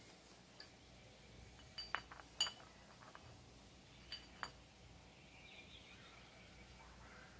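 Light metallic clinks of steel gearbox parts knocking together as they are handled: a quick cluster of clinks about two seconds in, then two more a little after four seconds. Faint paper rustling follows near the end.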